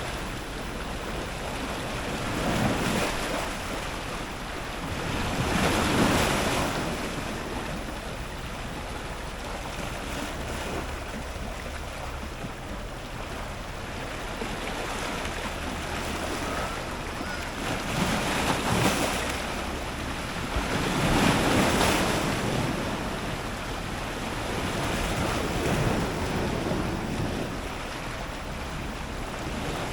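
Ocean surf breaking on rocks close to the waterline: a continuous wash of water, with waves surging louder every few seconds and a low wind rumble on the microphone.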